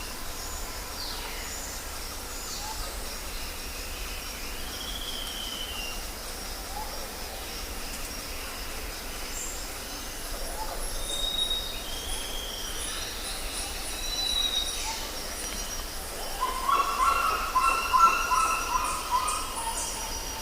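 Tropical forest ambience: several birds calling with short whistles and gliding notes over a steady high insect chirring. A louder bird call of rapidly repeated notes starts about three-quarters of the way in.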